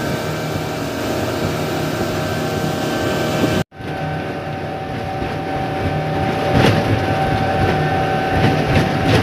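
Motorboat's engine running at speed with water rushing past the hull; from about six and a half seconds in, waves slap against the hull and throw spray. The sound cuts out briefly near four seconds in.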